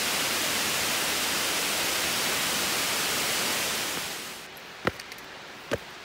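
Steady rush of the Güzeldere waterfall's falling water. It drops away abruptly about four seconds in, and two sharp taps follow.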